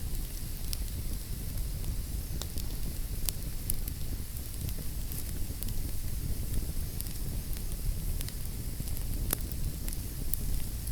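Wood fire burning in a fireplace: a steady low rush of flames with irregular sharp crackles and pops.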